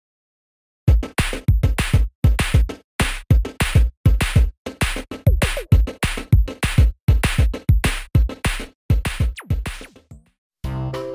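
Electronic drum-machine beat for a promo jingle: punchy hits about three a second with deep low thumps, starting about a second in and breaking off near ten seconds. Melodic music with held notes takes over right at the end.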